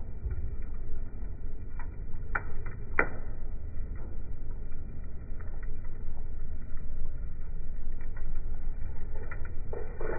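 Coal fire burning in a barbecue grill: a steady low rumble of flames, with two sharp pops about two and three seconds in and a few fainter crackles.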